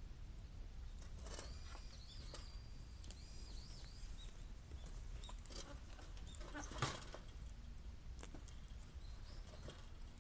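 Bamboo burning in a metal can, crackling with scattered sharp pops over a low rumble, and one louder pop about seven seconds in. Short high squeaking whistles come and go in the first few seconds.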